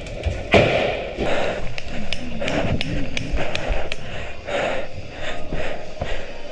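Airsoft gunfire: irregular sharp snaps and knocks of BBs being fired and striking hard surfaces, a dozen or so spread across a few seconds.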